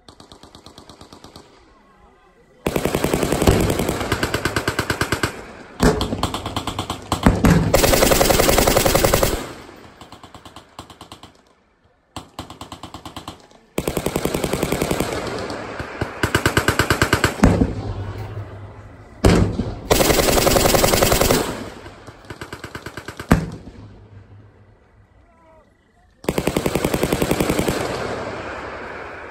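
Machine guns firing long bursts of rapid shots, each lasting one to three seconds, with short gaps between. Fainter bursts from farther guns fill some of the gaps, and a few single sharp cracks stand out.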